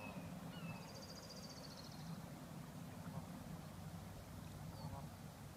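Young Canada geese calling faintly: a run of short, high, falling peeps about every half second, ending within the first second. A brief high buzzy trill follows, over a low steady rumble.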